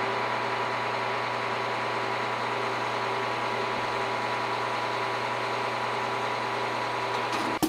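Heavy construction machine's engine running at a steady idle, an even drone that does not change. It cuts off abruptly at the very end with a sharp hit.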